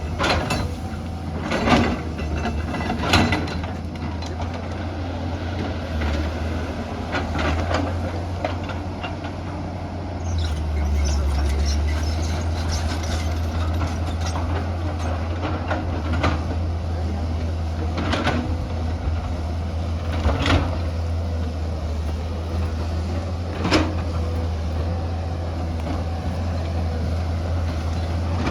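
Excavator's diesel engine running steadily under load, with occasional sharp clanks and knocks from the bucket and arm working earth and rock.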